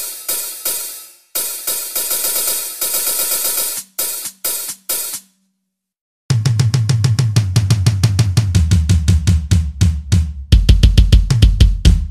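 A sampled drum kit being played. The first part is cymbal- and hi-hat-heavy crashes and hits; after a short break about five seconds in comes a fast, busy pattern of bass drum, toms and snare.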